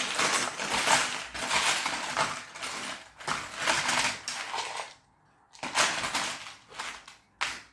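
Loose metal Meccano parts and nuts and bolts clattering and jingling as a hand rummages through a box of them, in two spells with a short break about five seconds in.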